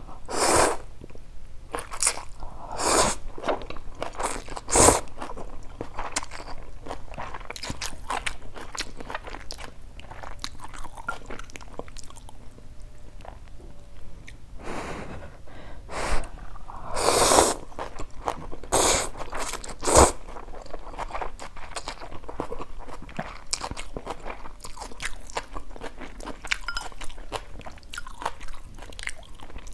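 Close-up eating sounds: hot instant noodles with water spinach being slurped and chewed. A steady run of small wet mouth clicks is broken by about a dozen louder slurps, several of them bunched together about halfway through.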